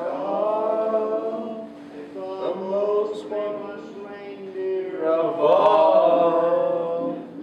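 Men singing a Christmas carol unaccompanied, holding long notes.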